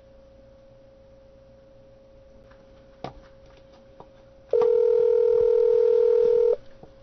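Telephone ringback tone on an outgoing call: one steady two-second ring about four and a half seconds in, the sign that the line is ringing at the other end. A click on the line comes near three seconds, over a faint steady tone.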